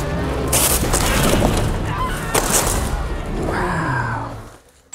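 Cardboard shipping box being stomped flat and crushed underfoot, with crunching, crackling and a couple of sharper hits. A few squeaky rising and falling tones come near the end.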